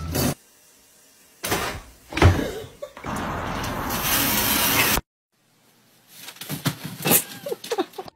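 A jet of water hitting window glass: an even hiss that holds for about two seconds and cuts off suddenly, after some shorter noisy bursts. After a silence comes a run of short clicks and small squeaks.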